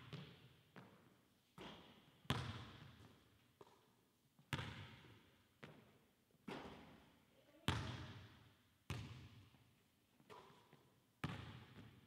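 A basketball thudding in an echoing gymnasium: bouncing on the hardwood floor, hitting the rim and being caught. There is a sharp thud about every second, each with a long ringing echo.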